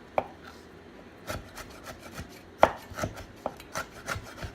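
Kitchen knife slicing frozen young galangal on a cutting board: a run of irregular knocks as the blade comes down, the loudest about two and a half seconds in.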